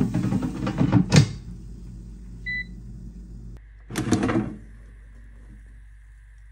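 Cookware and dishes clattering, then a single short electronic beep from a kitchen appliance about two and a half seconds in. A steady appliance hum starts just after, under a second brief clatter.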